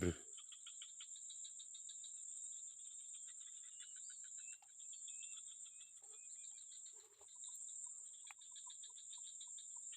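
Insect chorus, crickets and similar insects, with a steady high buzz and a fast pulsing trill. A few short gliding bird chirps come in the middle. From about three quarters of the way through, a short lower note repeats about three times a second.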